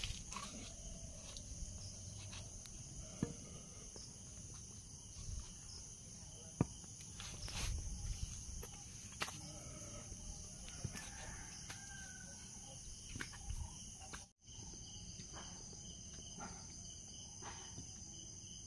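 Steady high-pitched insect chorus, with scattered light knocks and taps. About two-thirds of the way through there is a brief break, after which a pulsing insect trill takes over.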